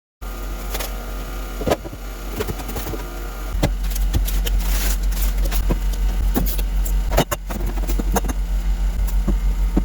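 Steady low machine hum that grows louder about three and a half seconds in, with scattered clicks and knocks over it.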